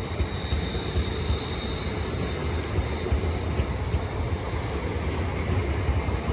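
A pair of London Northwestern Railway Class 350 electric multiple units running along the adjacent track, a steady rumble of wheels on rail.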